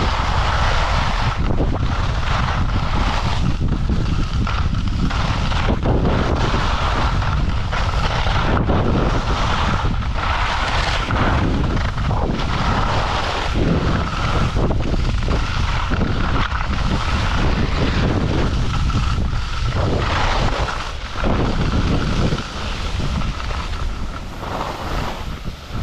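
Wind buffeting an action camera's microphone while skiing downhill, mixed with the hiss and scrape of skis on groomed snow. It eases and becomes more uneven near the end as the skier slows.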